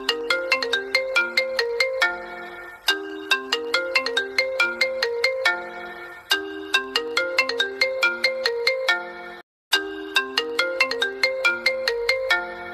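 iPhone 12 Pro incoming-call ringtone: a short melody of quickly decaying pitched notes, repeated phrase after phrase. It breaks off briefly about nine and a half seconds in, then starts again.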